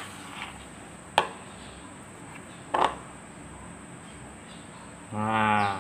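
Metal spoon working thick glutinous-rice-flour dough in a plastic bowl, with three sharp clicks of the spoon against the bowl in the first three seconds. Near the end, a short held voice sound.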